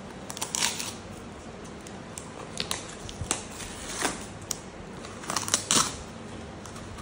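Paper and cardboard packaging being torn open and handled: irregular crackles and short ripping sounds, the loudest cluster a little before the end.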